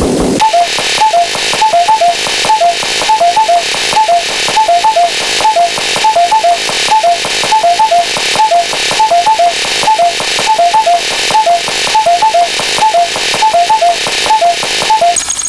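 Radio static: a steady hiss with short high-then-low beep pairs repeating in quick clusters, like a radio transmission sound effect.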